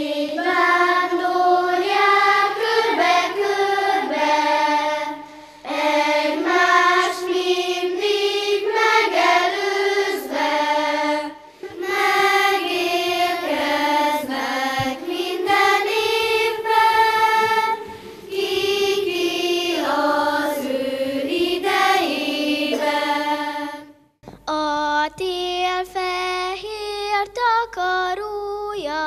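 Children's choir singing a hymn-like song in phrases with short breaths between them. About 24 seconds in the sound cuts to a closer recording of a child singing, with a steady low hum underneath.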